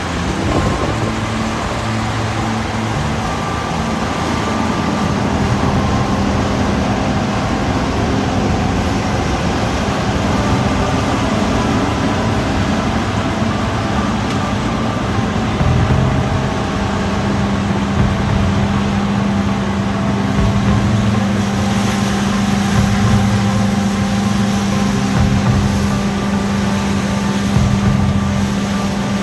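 Claas combine harvester running steadily at work, its engine and machinery giving a constant mechanical drone with a steady low hum that strengthens in the second half.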